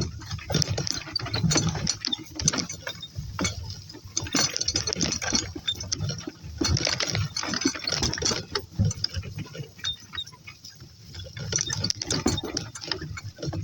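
A cart rattling and clattering as it rolls over rough ground, with a steady run of irregular knocks and clicks.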